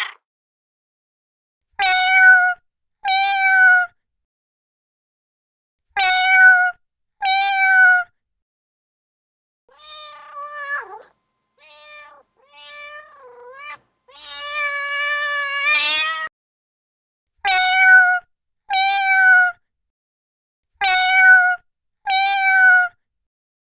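Kitten meowing: four pairs of short, high meows, each pair alike, with dead silence between them. In the middle comes a quieter run of lower, wavering meows, ending in one long meow of about two seconds.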